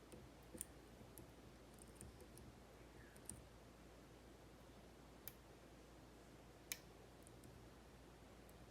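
Faint, scattered metallic clicks from a pick working inside a Kaba 8 lock cylinder, about six in all, irregularly spaced.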